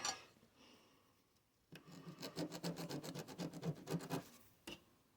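Ballpoint pen scribbling back and forth on paper in quick strokes for about two and a half seconds, then one more short stroke. This is a test of a pen that has just started writing again after brief microwave heating revived its dried ink.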